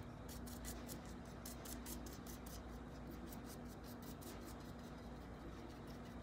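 Paintbrush dabbing and brushing paint over crinkled tissue paper on a stainless steel tumbler: faint, quick, scratchy strokes, several a second. A faint steady hum lies underneath.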